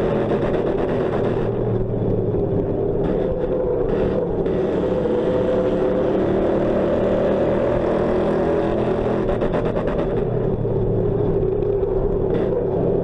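Ford Crown Victoria race car's V8 running hard under race load, heard from inside its stripped, roll-caged cabin. It holds a steady note whose pitch eases slightly and picks back up a couple of times.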